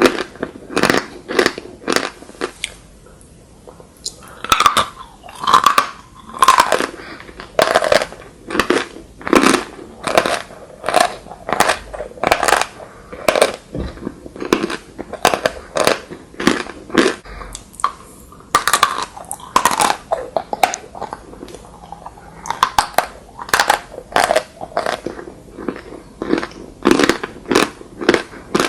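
Close-miked chewing of chalk: a steady run of crisp crunches, about one to two a second, with brief pauses near the start and about midway.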